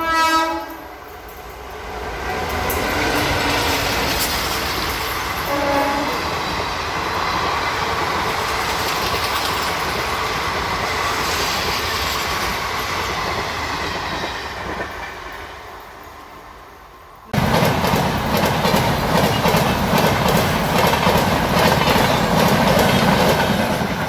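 Indian Railways train: a short horn blast at the start and another brief one about five seconds in, while the train runs past with rail noise that swells and then fades. About seventeen seconds in, the sound cuts abruptly to a train passing close with loud, steady wheel clatter.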